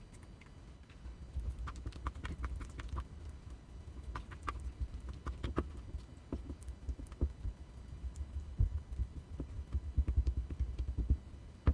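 Silicone spatula stirring a thick paste of petroleum jelly and salt in a glass bowl: irregular soft taps and clicks against the glass with low thuds, busier and louder toward the end.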